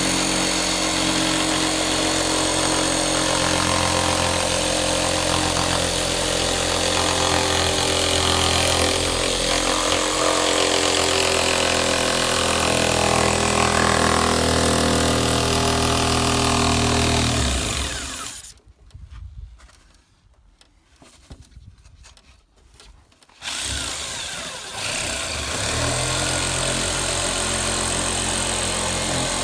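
A motor running steadily, cutting out about 18 seconds in and starting up again about five seconds later.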